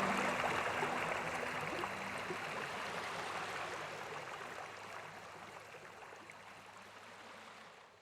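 Steady rush of a waterfall, fading out gradually over the few seconds.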